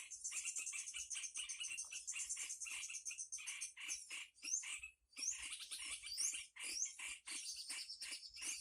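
Tropical forest chorus: a dense, high, continuous trilling of insects with fast repeated clicking calls, likely frogs, and several short rising bird chirps in the second half.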